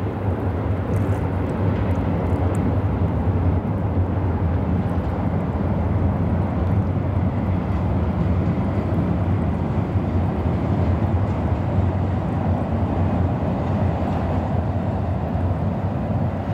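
Hamburg S-Bahn electric multiple-unit train rumbling across a steel truss railway bridge, a steady loud rumble with a deep low hum underneath.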